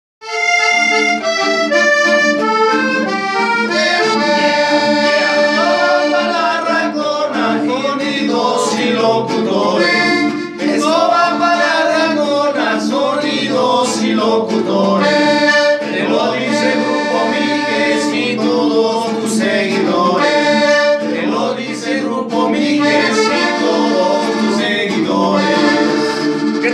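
Button accordion leading a band's music, with men's voices singing along.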